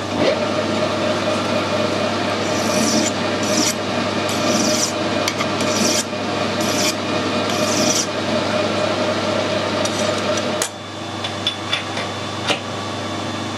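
Metal lathe running with a hand file stroked against the end of a small spinning 1/4-inch metal pin, about six rasping strokes, putting a chamfer on it before threading. The lathe cuts off about three-quarters of the way through, and a few light metal clicks follow.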